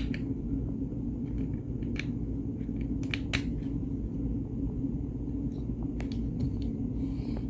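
Steady low background hum, with a few light clicks and taps as small tools and steering-wheel parts are handled: one about two seconds in, a close pair a little after three seconds, and one near six seconds.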